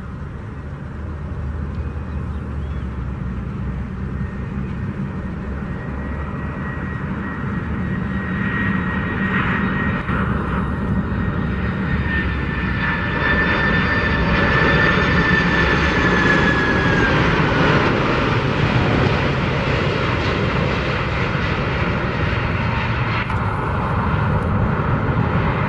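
Boeing 747-400 freighter's four jet engines on final approach, a steady rumble growing louder as the jumbo nears and flies low past. A high engine whine strengthens and then drops in pitch as the plane goes by, before it settles onto the runway.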